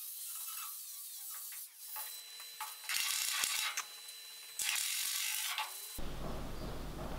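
Angle grinder dressing down welds on a sheet-steel body panel, with two loud bursts of grinding about three and four and a half seconds in. From about six seconds in, a steady low hum takes over.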